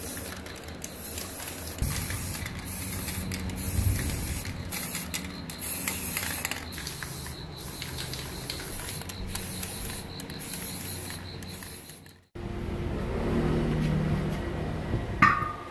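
Aerosol spray-paint can hissing in many short bursts with brief gaps between them. Near the end there is a single sharp knock, the loudest sound here.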